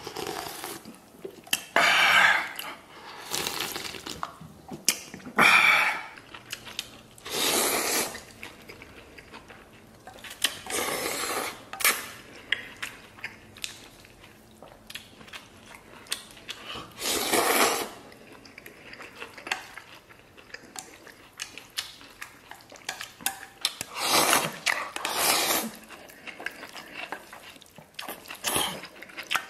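Noodles slurped in noisy pulls every few seconds, with chopsticks clicking and scraping against a stainless steel pot in between.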